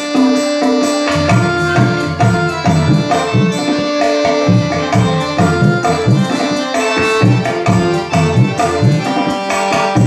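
Instrumental passage of a Nepali song: a steady hand-drum rhythm under sustained melodic instruments, with no singing.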